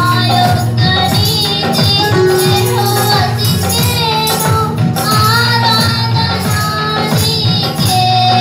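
A woman singing a Christian devotional song into a microphone over amplified music, with a steady beat and tambourine jingles.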